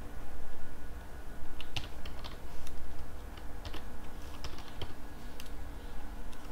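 Typing on a computer keyboard: scattered, irregular key clicks as a terminal command is entered, over a steady low hum.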